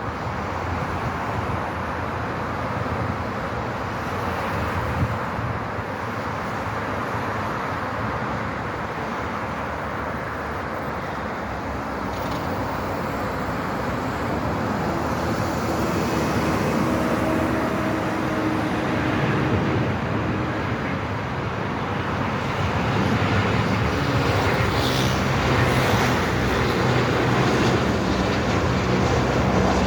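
Jet engines of a Boeing 737-800 airliner on landing, a steady rushing noise that grows gradually louder, with low hums coming and going in the second half.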